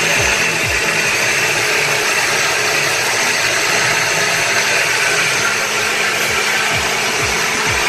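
A steady loud rushing, whirring noise with the repeated low, falling thuds of a music beat under it.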